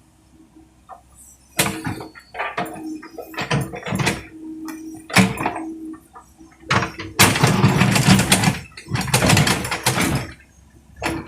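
Komatsu excavator loading soil and sand into a dump truck: a series of knocks and rushing pours of earth into the truck bed, the longest two in the second half, over a steady engine hum.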